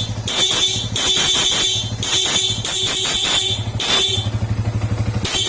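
Bosch FC2 compact dual disc horn sounding in a run of short blasts, about six, each half a second to a second long, with a longer pause near the end. Under it the Yamaha R15 v2's single-cylinder engine idles steadily.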